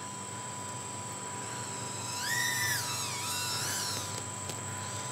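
High-pitched whine of a Happymodel Mobula8 micro quadcopter's 1103 brushless motors, heard from a distance: the pitch rises on a throttle punch about two seconds in, dips, rises again and falls away near four seconds.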